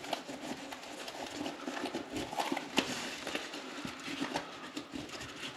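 Zip on a small semi-hard carry case being pulled open, a steady faint rasp with small clicks, followed by light handling of the case lid and contents.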